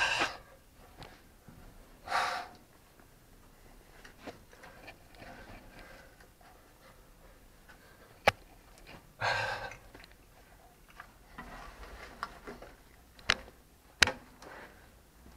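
Scraping and shuffling of people crawling on hands and knees through a narrow concrete pipe tunnel, clothing and limbs brushing the concrete and rubble, with a few sharp knocks about eight, thirteen and fourteen seconds in.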